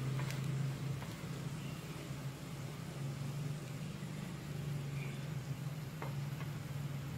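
Sandwich grilling on a hot nonstick pan, a faint steady sizzle, over a steady low hum.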